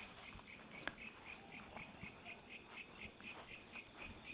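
Faint night-time chorus of calling animals: a steady, even pulsing chirp, about five a second, at a high and a very high pitch, with a few soft clicks.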